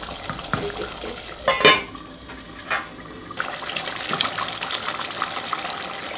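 Thick curry simmering and crackling in an aluminium pot while a wooden spoon stirs it, with one loud knock against the pot about a second and a half in. In the second half, whole potatoes drop from a bowl into the sauce with soft plops and small clicks.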